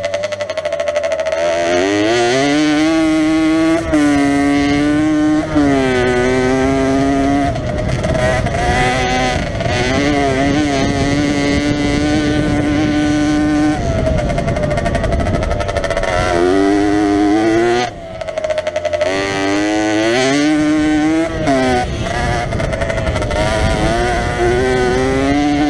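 Jawa 50 enduro motorcycle's small two-stroke single-cylinder engine being ridden hard, revving up through the gears. Its pitch climbs and drops back again and again, with the throttle shut off briefly several times and most sharply about 18 seconds in.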